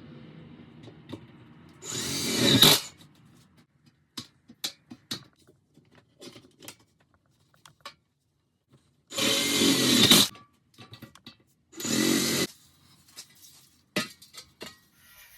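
A power drill run in three short bursts, about a second each, drilling metal, with clicks and knocks of tool handling between the bursts.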